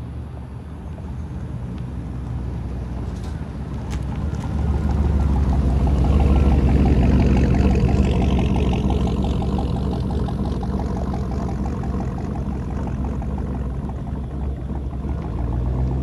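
Cammed Chevy Tahoe V8 driving past: its engine and exhaust rumble builds as the truck approaches, is loudest about six to eight seconds in as it passes close, then eases off as it pulls away.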